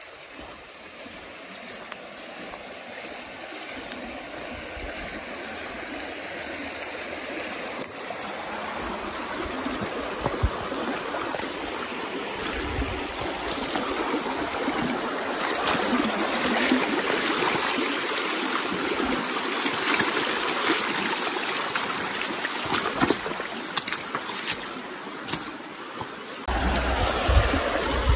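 Shallow stony river running over a gravel riffle, growing steadily louder as it is approached. A low rumble suddenly joins it near the end.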